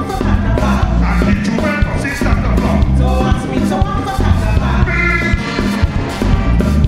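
A live band playing retro soca, with horns, bass and drums keeping a steady dance beat.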